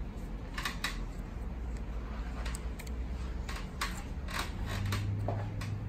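Scattered light clicks and taps of a small hand-screw hose insertion tool being worked and handled as a barbed insert is pressed into a hydraulic brake hose, over a steady low hum.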